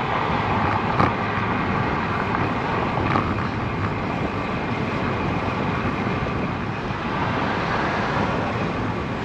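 Steady wind rush over the microphone with road noise from a road bike in motion, a couple of faint clicks about one and three seconds in.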